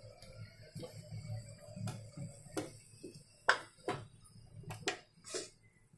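Steel slotted spoon clinking and tapping against the rim of a steel pot of frying oil as fried samosas are scooped out: a string of irregular sharp metallic clicks, loudest about halfway through. Under them runs a faint sizzle of hot oil.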